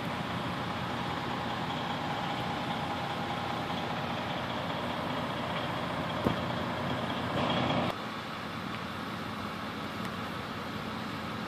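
Parked fire trucks and emergency vehicles idling: a steady engine drone. There is a sharp click a little after the middle and a brief louder rush about two-thirds in.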